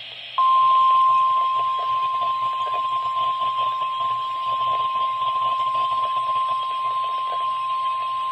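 NOAA Weather Radio warning alarm tone played through a weather radio receiver: a single steady 1050 Hz tone that starts about half a second in and holds, over faint radio hiss. It is the signal that switches on specially built warning receivers, sent here as the weekly test.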